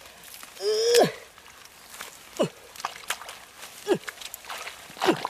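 Hands groping and splashing in shallow muddy water among grass and weeds, with scattered small splashes and rustles. There is a short vocal exclamation about a second in, and a few brief sounds that drop sharply in pitch.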